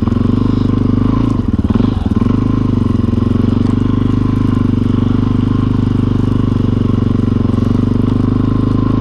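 Single-cylinder four-stroke dirt bike engine thumping along at low revs through deep snow, with a brief unsteadiness about two seconds in.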